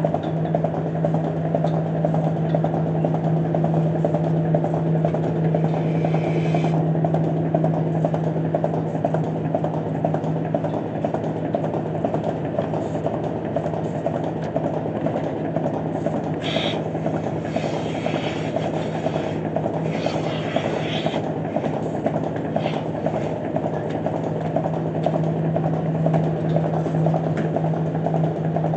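Milking system's vacuum pump (compressor) running with a steady hum, with a few brief hisses about six seconds in and again in the middle stretch.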